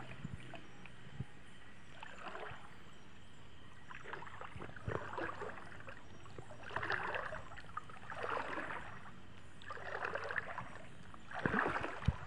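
Slow, careful wading through river water: a soft swish and slosh about every second and a half as the legs push through, growing a little louder near the end.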